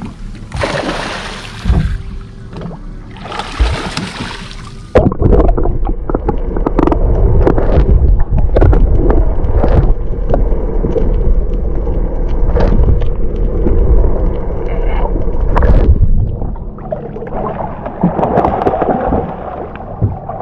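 Water sloshing and gurgling around a small fishing boat. About five seconds in a loud, low rumbling starts, full of small knocks, and it eases off about sixteen seconds in.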